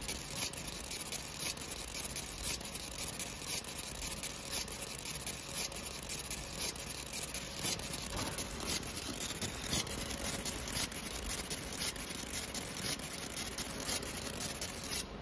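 60 W fiber laser beam cutting through 0.15 mm stainless steel sheet: a dense, irregular crackling hiss made of many sharp ticks, running steadily as the beam traces the part.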